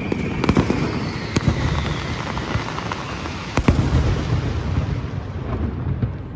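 Fireworks display: a steady low rumble of distant bursts with several sharp cracks, the loudest a double crack about three and a half seconds in, and a faint falling whistle early on; the rumble fades toward the end.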